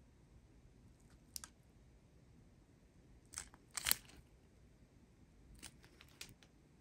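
Faint crinkles and clicks from a strip of clear plastic zip bags of resin diamond-painting drills being handled, a few separate crinkles with the loudest about four seconds in.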